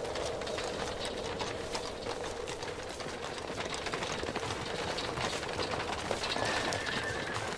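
Hooves clopping in a quick, irregular clatter, with a steady low hum that fades out in the first few seconds.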